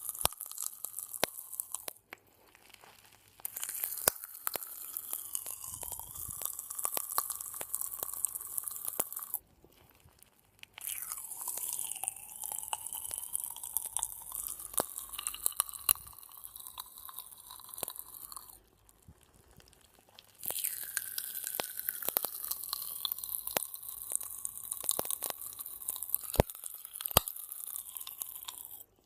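Popping candy crackling and fizzing, a dense patter of tiny pops with occasional sharper clicks. It comes in three long runs of several seconds, broken by short pauses.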